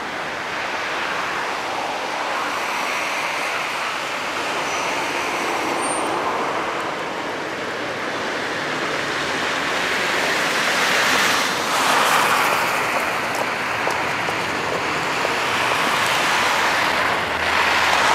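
Street traffic: cars driving by on the road, their tyre noise swelling as vehicles pass about eleven seconds in and again near the end.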